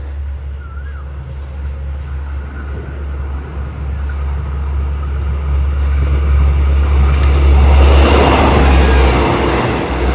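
Diesel railcar train approaching and running past along the platform. The wheel and engine noise builds from about halfway and is loudest near the end as the cars go by, over a steady low hum.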